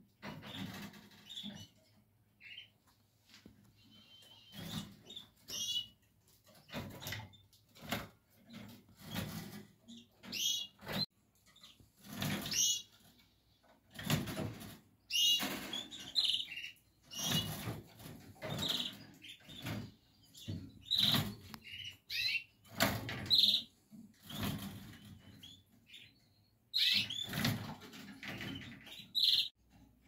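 Canaries in a breeding cage giving short, irregular chirps, mixed with brief rustling noises.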